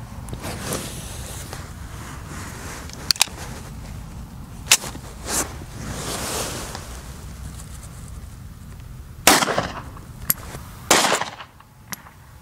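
A 9mm P-08 Luger pistol fires a single 1943 wartime round about nine seconds in, with a second loud bang a second and a half later. A few sharp clicks and knocks come before it.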